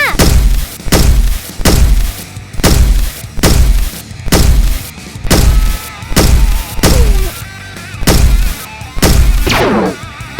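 Background music with a heavy, steady beat of about two thumps a second, and sliding tones over it.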